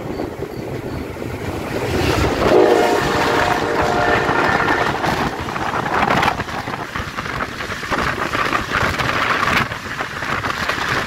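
An oncoming train passes close on the adjacent track: a train horn sounds for about three seconds starting two seconds in, then the Russian-built passenger coaches rush past with rapid wheel clatter and wind noise.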